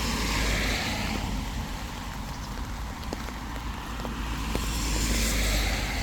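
Road vehicles passing, their tyre noise swelling and fading: one dies away over the first second or so and another builds up near the end. A steady low rumble lies underneath.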